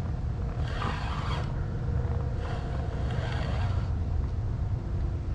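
Wind buffeting the microphone as a steady low rumble, with two short hissing bursts, the first about half a second in and the second around the middle.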